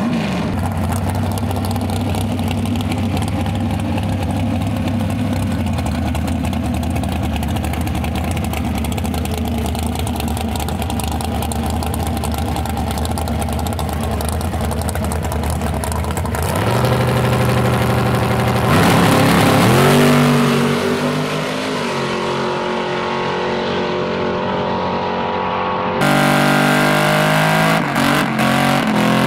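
A dragster's V8 engine idles steadily at the starting line, then about two thirds of the way in revs up and launches, its pitch rising as it pulls away. Near the end, after a cut, a Chevrolet Camaro Z28's engine runs hard during a smoky burnout.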